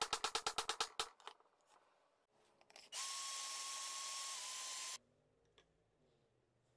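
A hammer rapidly and evenly tapping a steel T-nut into a wooden disc, each blow ringing metallically, stopping about a second in. After a pause, a power drill runs for about two seconds with a steady whine that dips slightly in pitch near the end, its twist bit boring through the T-nut's hole into the wood, then cuts off abruptly.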